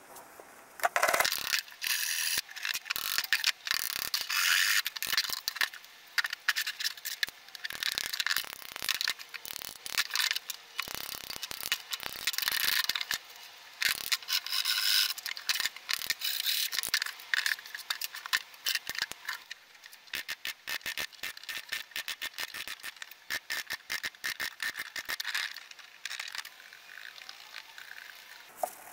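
A small hammer tapping small nails into plywood: quick, light, repeated taps and clicks, many in close succession, with short pauses between runs.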